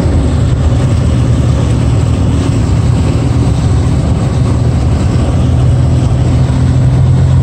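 Vehicle engine running as it drives, heard from inside the cab: a steady low drone with no break.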